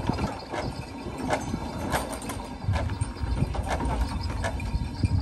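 Ox-driven flour mill (kharas) at work: a steady low rumble with irregular knocks and clatter, about one or two a second, from the oxen's plodding round the mill and the turning beam and gearing.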